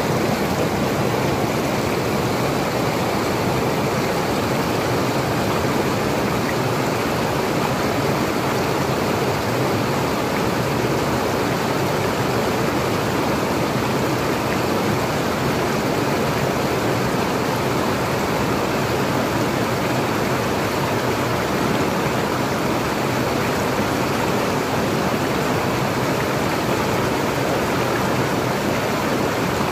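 Fast, shallow mountain stream rushing over boulders: a loud, steady wash of white-water noise.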